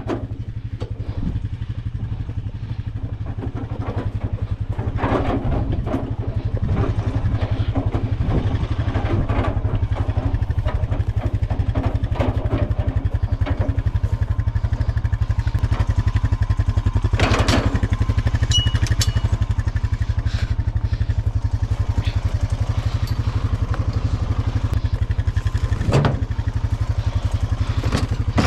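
Quad bike engine running steadily as it is ridden, with scattered knocks and rattles; it gets louder about four seconds in.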